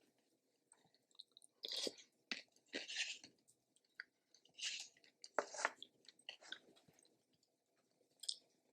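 A person chewing food close to the microphone: irregular bites and chews with short pauses between them.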